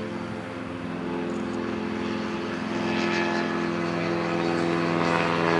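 Jodel D11-based light aircraft powered by an automotive diesel engine driving the propeller directly, running steadily at taxi power. It gets a little louder about halfway through.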